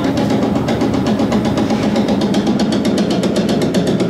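General Electric screw-drive wheelchair lift running as its platform travels: a steady motor hum with a fast, even ticking from the drive.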